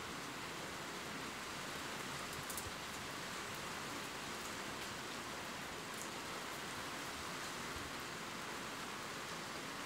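Steady rain ambience: an even hiss of falling rain, with a few faint drop ticks.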